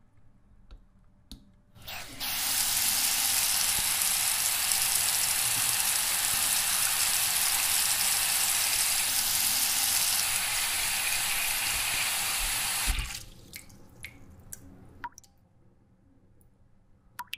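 Water running hard from a bathroom tap into a plastic bucket: a steady rushing hiss that starts about two seconds in and stops abruptly about eleven seconds later. A few faint knocks and clicks follow.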